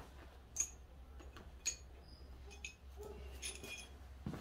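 Faint, scattered light clicks and ticks of small metal motorcycle hardware being handled, an M8 bolt, washer and fairing stay, with a low steady hum underneath.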